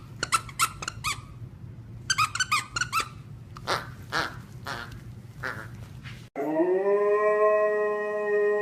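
Husky whining in quick runs of short, squeaky, high-pitched yips, then a few short breathy puffs. About six seconds in the sound cuts off abruptly and a long tone starts, rising and then holding steady.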